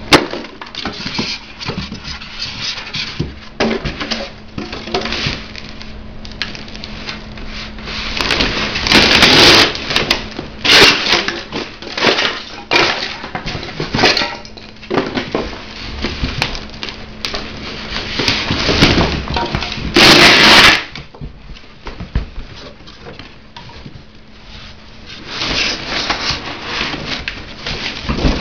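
Packing material and a cardboard box being handled: crackling, crumpling and rustling as the wrapping is pulled out, in irregular bursts, the loudest about a third of the way in and again about two-thirds in.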